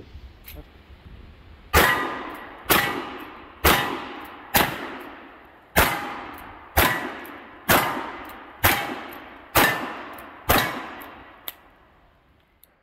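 Ten revolver shots from Richards-Mason cartridge-conversion Colt revolvers fired two-handed, about one a second, each followed by the ring of a hit steel target. A light click comes near the end.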